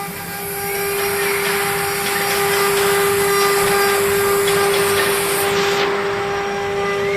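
CNC router's 5.5 kW water-cooled spindle running with a steady whine over a loud rushing noise. A brief rising-and-falling tone comes about a second in, and the highest hiss drops away near the end.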